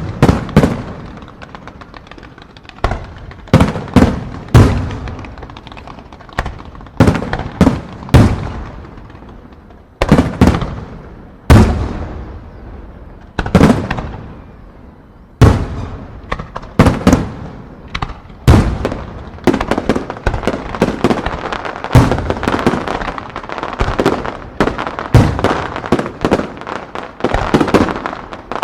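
Aerial fireworks shells bursting in a rapid barrage: deep booms, often two or three in quick succession, each followed by a fading echo. In the second half a dense crackling of firecracker-type effects builds up between the booms.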